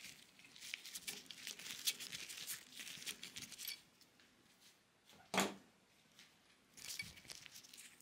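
Faint scratching, crinkling and small clicks of gloved hands handling and pulling free a small cable-connector PCB and its cables, with one sharper click about five seconds in.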